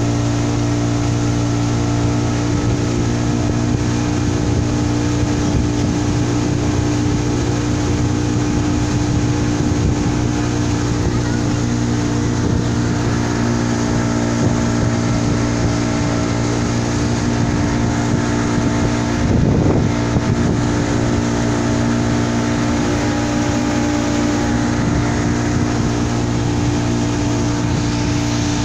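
Pontoon boat's engine running steadily under way, a constant drone, with a brief louder rush of noise about twenty seconds in.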